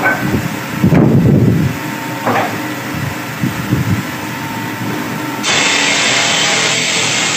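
Working noise of a stone-tile cutting saw, uneven grinding at first. About five seconds in, a steady, loud hiss of machine noise starts suddenly.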